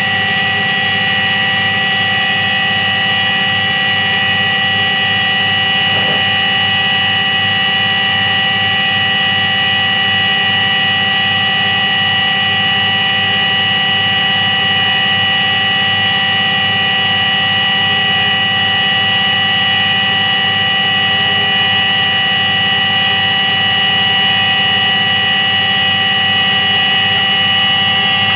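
Washing machine drum spinning at steady speed, its drum bearing giving a steady high whine over a low, evenly pulsing hum. This humming is the typical sign of a worn drum bearing.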